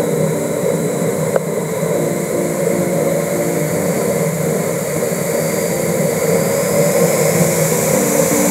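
Steady road and wind noise of a car driving, with short repeated musical notes over it.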